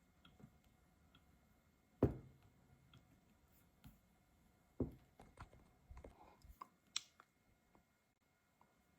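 Scattered clicks and light knocks from hands working at a laptop, the loudest a knock about two seconds in, with a few more near the middle and end, in a quiet room.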